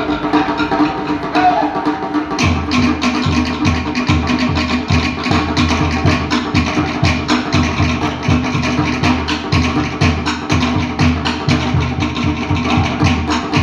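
Live Pacific Island dance drumming: a fast, driving rhythm of sharp wooden drum strikes, joined about two seconds in by a deep bass drum beating quickly and evenly.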